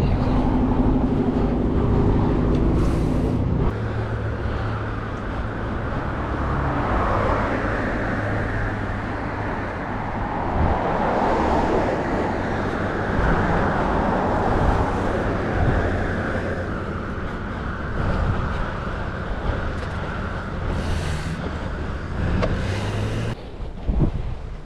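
Road traffic noise: motor vehicles running on the street, with a steady low hum that cuts off near the end.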